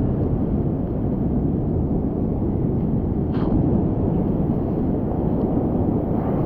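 Steady rushing roar of surf and churning water, heavy in the low end, as heard through a GoPro held in a bodyboarder's mouth.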